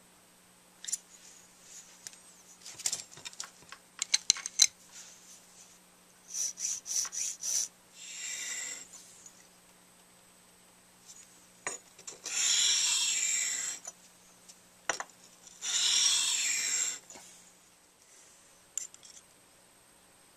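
Brass tenor saxophone mouthpiece rubbed over abrasive paper on a flat plate to true its facing: a quick run of about five short scraping strokes, then three longer scrapes. Before them, a scatter of light clicks and taps from tools being handled.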